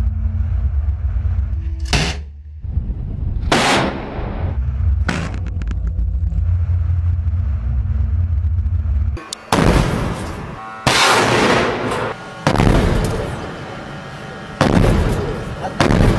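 A warship's deck gun firing single shots several times, a second or two apart, with a longer pause about midway. A low steady rumble lies under the first half.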